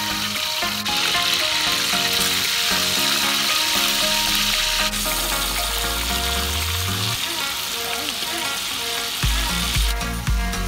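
Marinated whole quail frying in hot fat in a large metal wok, a steady sizzle that eases off near the end. Background music runs underneath, with a bass beat coming in about nine seconds in.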